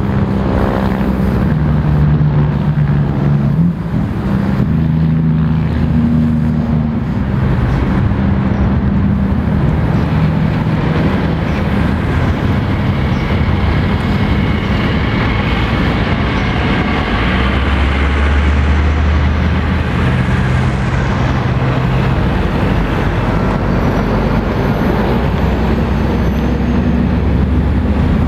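Heavy road traffic passing close by: cars, pickups and diesel lorries, with a steady rush of tyres and engines. In the second half a deep diesel drone grows as a loaded articulated lorry pulls past, trailing black exhaust smoke.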